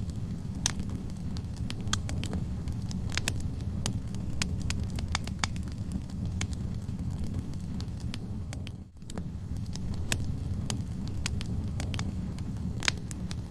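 Wood fire burning in a fireplace: a steady low rumble of flames with irregular sharp crackles and pops from the burning logs. The sound dips briefly about nine seconds in.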